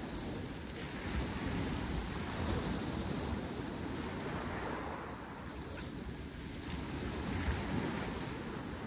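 Sea surf washing onto a shingle beach, a steady noisy wash that eases slightly and swells again, with wind rumbling on the microphone.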